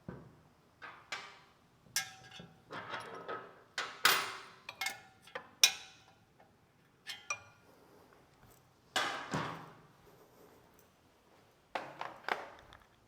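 Metal hand tools and parts clinking and knocking in irregular single strikes, some leaving a short metallic ring, as wrenches work on the exhaust bracket bolts.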